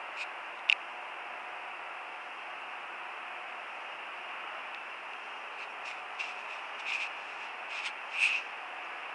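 Steady hiss of background noise with scattered soft clicks and rustles: one sharp click under a second in, then a run of louder clicks in the last few seconds.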